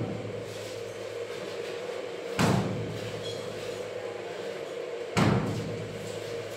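Dull thuds at even intervals, one about every two and three-quarter seconds, over a steady hum.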